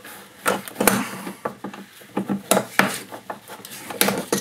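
A rubber air intake hose being worked off a golf cart's airbox by hand: a string of irregular clicks and knocks with some rubbing as the hose and plastic housing are pulled and twisted.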